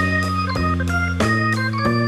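Instrumental background music: held notes over a bass line, the chords changing about every half second.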